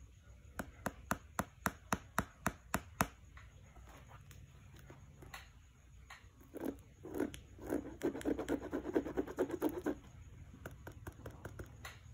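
Fingertips tapping on a basketball shoe's glossy plastic heel piece, about ten sharp taps at roughly four a second, followed a few seconds later by rubbing and scraping as fingers run over the shoe's knit mesh upper.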